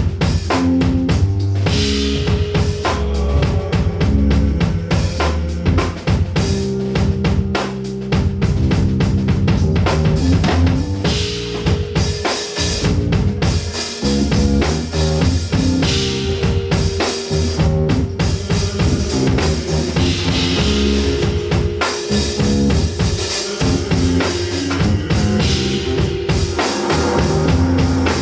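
A live band playing an instrumental rock passage: a full drum kit with bass drum and snare hits over a moving bass line, with a held higher note above.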